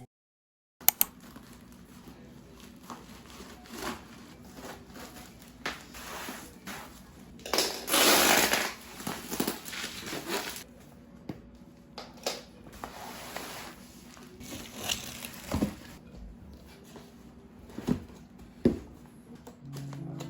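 Household objects being handled close up: scattered clicks and taps, with a longer, louder rustling stretch about eight to ten seconds in.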